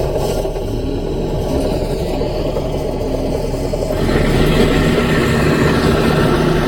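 Mini bulldozer's diesel engine running steadily under work, growing louder about four seconds in.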